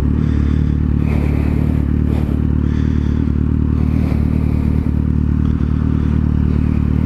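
Kawasaki Z750 motorcycle engine running at steady revs, its exhaust note holding one even pitch with no revving.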